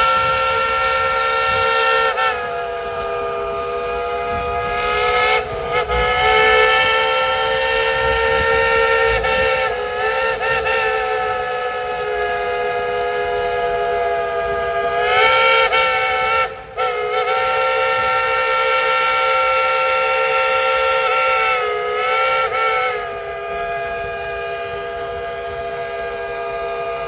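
Baldwin steam locomotive whistle played as a tune by the engineer: long, loud, chord-like blasts held for many seconds, with brief breaks about five and sixteen seconds in and the pitch sliding down and back up a few times as the valve is worked.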